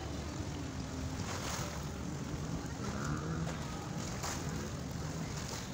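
Small waves washing in over a flooded shoreline, with wind on the microphone and a faint low hum underneath. Two brief splashes come about a second and a half in and again about four seconds in.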